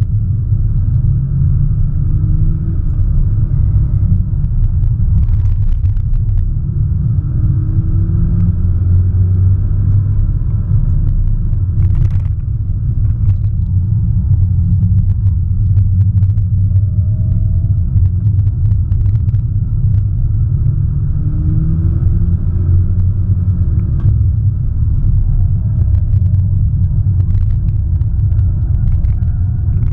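Inside the cabin of a 2017 Audi S1 Sportback at speed on a race track: a heavy, steady low rumble of its turbocharged 2.0-litre four-cylinder engine and the tyres on the road. The engine note rises in pitch a few times as the car accelerates, with faint clicks and knocks from the cabin.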